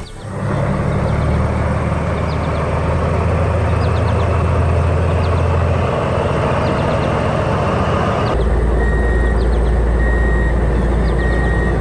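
A heavy engine or machine running steadily with a low hum. About eight seconds in it shifts to a deeper, stronger hum.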